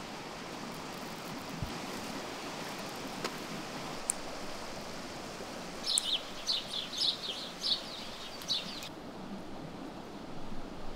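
Steady rush of a woodland stream, with a bird calling in a quick run of sharp chirps for about three seconds just past the middle.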